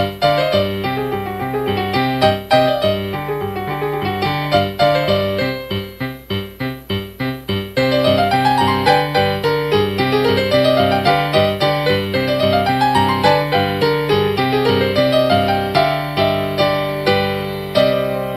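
Lively solo piano music with a bouncing, stepping bass under chords; a softer stretch of short repeated chords gives way to several quick rising runs in the middle, and it settles on a held chord near the end.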